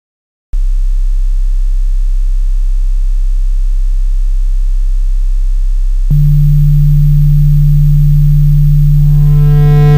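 Loud, steady synthesizer drone that starts suddenly about half a second in. A second, higher tone joins it about six seconds in, and a middle tone swells near the end.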